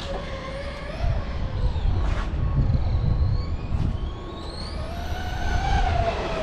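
An RC monster truck's electric motor whines and rises and falls in pitch as the throttle is worked, over a low rumble from the tyres and drivetrain. There is a short sharp knock about two seconds in.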